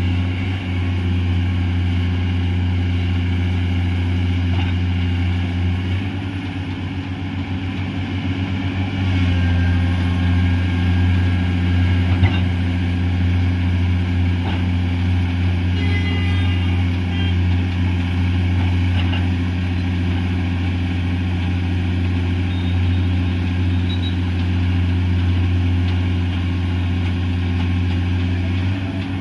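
Komatsu hydraulic excavator's diesel engine running steadily, a deep drone, with a pulsing stretch where it dips slightly about six to nine seconds in. A single sharp knock sounds about twelve seconds in.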